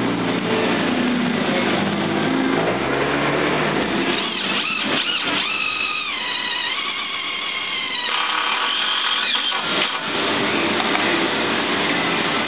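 Cordless drill-driver running skid-plate bolts home, its motor whining with the pitch stepping up and down between about four and ten seconds in. A steady noisy background runs before and after.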